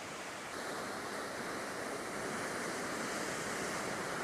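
Atlantic Ocean surf washing on the coast, a steady rushing wash that swells slightly about half a second in.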